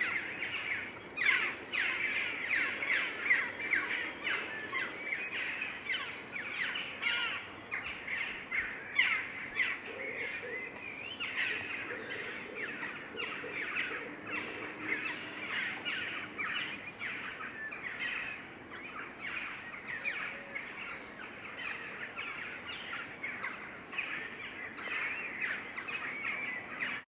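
Many small birds chirping and singing at once, a dense run of short, quick calls and pitch glides that goes on without a break.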